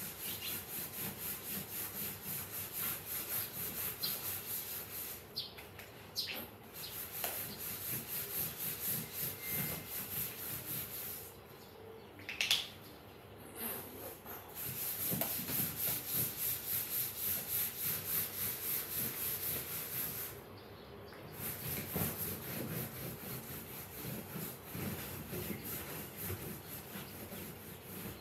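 Rapid back-and-forth scrubbing of a sofa's upholstery with a cloth and cream cleaner, about three strokes a second, stopping briefly a few times.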